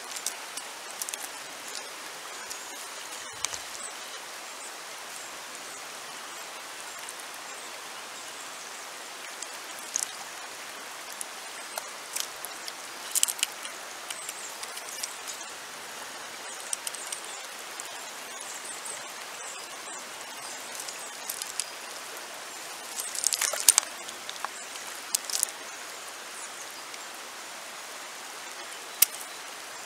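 Shallow river water running over stones: a steady rush, with short sharp ticks and splashes now and then, a cluster of them about three quarters of the way through.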